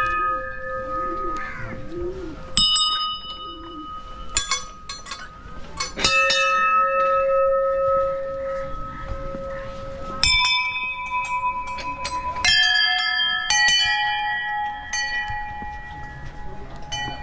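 Temple bells of different pitches struck one after another, each strike ringing on for a few seconds before the next.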